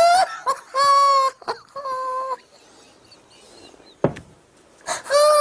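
A person's voice letting out drawn-out wailing cries, each held at one steady pitch, four times, with a short low thump about four seconds in.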